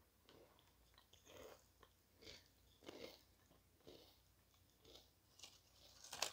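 Faint chewing of Lay's potato chips: a run of short crunches every half second to a second. A sharper crackle near the end comes as crisp chips are picked up off the desk.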